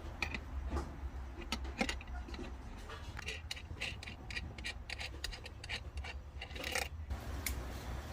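Hand work on parts and tools: an irregular run of sharp clicks, light knocks and rubbing, thickest in the second half and stopping about seven seconds in, over a steady low hum.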